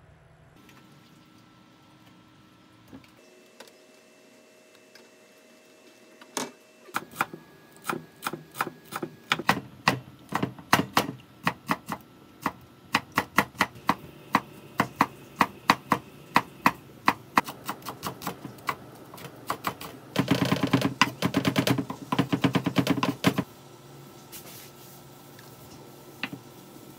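Kitchen knife chopping chillies and other vegetables on a wooden cutting board: single strokes, about two or three a second, begin about six seconds in, then about three seconds of rapid mincing near the end, the loudest part.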